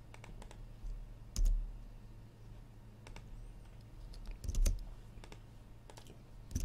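Computer keyboard keys and mouse buttons clicking irregularly, single presses and short quick runs, a few landing with a dull thump, over a steady low electrical hum.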